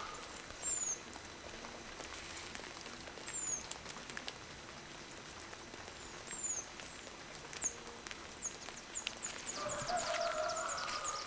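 Small birds giving thin, high, falling chirps a few seconds apart, then a quick run of short chirps near the end. Around the last second or two a chicken calls.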